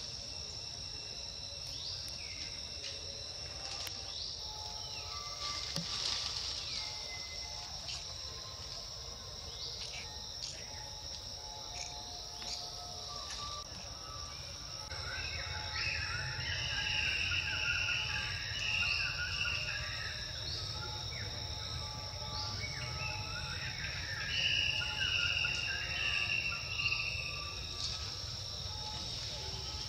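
Steady high-pitched drone of insects, with bursts of shrill chirping calls in the middle and again near the end.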